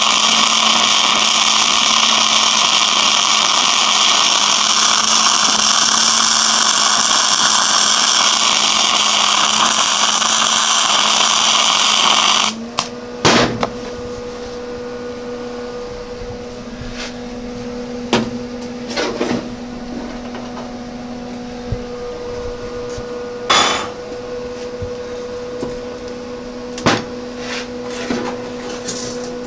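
Wire-feed welding arc sizzling steadily while the differential gears of a lawn-mower transaxle are welded to lock them. It cuts off abruptly about twelve seconds in, leaving a steady hum broken by a few short knocks and clicks.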